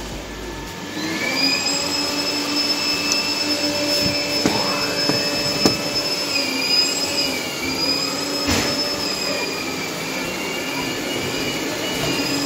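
Steady whirring drone of an electric motor, its several tones wavering slightly together, with a brief rising sweep about four and a half seconds in and a sharp click about eight and a half seconds in.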